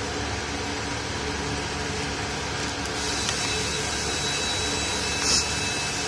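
Steady machinery hum and noise of a car repair workshop, with faint steady whining tones, and a short hiss about five seconds in.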